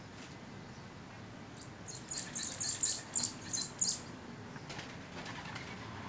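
A bird gives a quick run of about eight short, high, sharp chirps, starting about two seconds in and lasting about two seconds.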